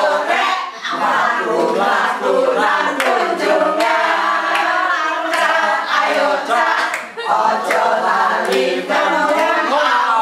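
A group of men and women singing a cheer together as a chant, loud and in unison, with hand clapping throughout.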